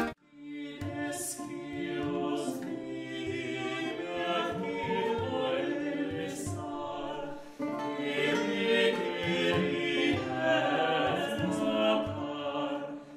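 Background music of a choir singing, with a brief drop in level about seven and a half seconds in.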